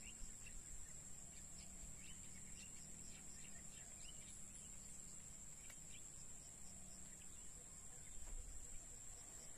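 Faint open-air wetland ambience: a steady high-pitched insect drone with scattered short bird chirps.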